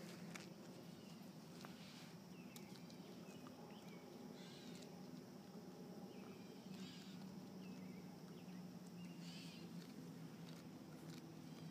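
Near silence: faint outdoor ambience with a low steady hum, a scattering of faint high chirps and a few faint clicks.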